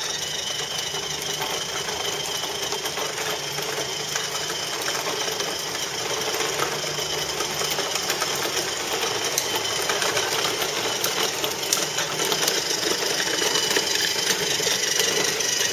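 Electric drive motor and gears of a child's ride-on toy car whirring steadily while the car drives, with its hard wheels rolling on concrete.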